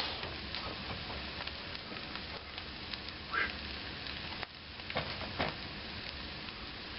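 Egg and leftover filling sizzling in a nonstick frying pan on an electric stove burner: a steady frying hiss with scattered light crackles. A short squeak comes about three seconds in, and a couple of light knocks follow a second or two later.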